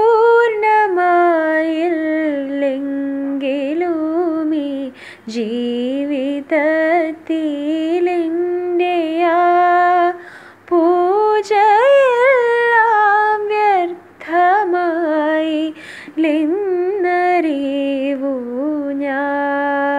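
A woman singing unaccompanied through a wired earphone microphone: one voice in long held notes with wavering ornaments, phrases broken by short breaths.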